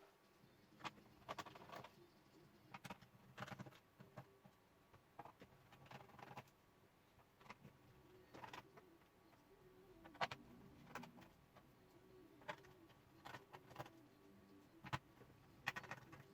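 Faint, irregular clicks and light taps of a screwdriver and small screws being worked out of a laptop's plastic case.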